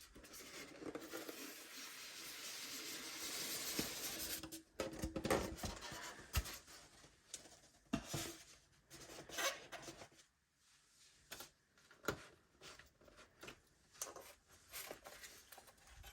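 Packaging being handled during an unboxing: a long rustling for about four seconds, then a string of small knocks, taps and short rustles.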